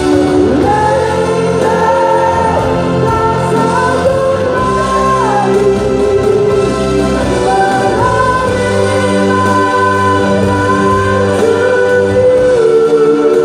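A man singing a melody into a microphone, backed by a live band with a keyboard holding sustained organ-like chords and an electric guitar.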